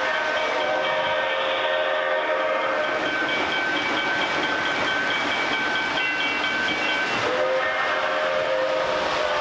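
Lionel O-gauge model trains running on three-rail track: a steady rumble of wheels and motors, with a steady whine over it that shifts to a lower pitch about seven seconds in.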